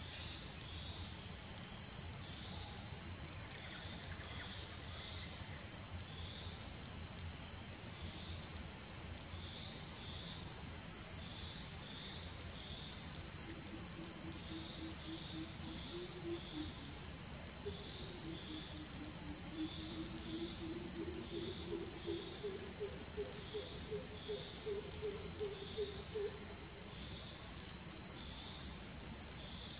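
Dense chorus of insects making a loud, steady, high-pitched drone that never lets up.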